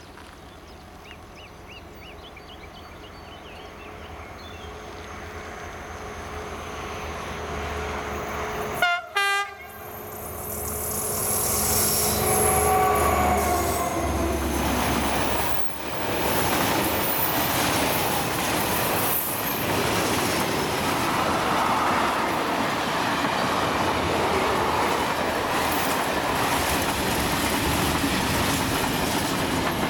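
SNCF CC 72000 diesel locomotive hauling a freight train: its engine grows steadily louder as it approaches, and a short horn blast sounds about nine seconds in. The locomotive then passes and the long rake of freight wagons rolls by with steady clickety-clack of the wheels over rail joints and some wheel squeal on the curve.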